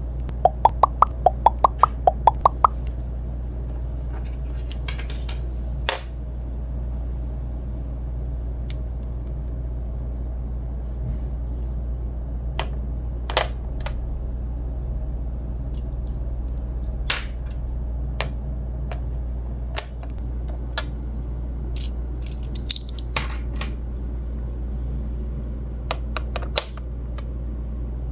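Small plastic toy pieces being handled: a quick run of about ten clicks in the first few seconds, then scattered single taps and clicks over a steady low hum.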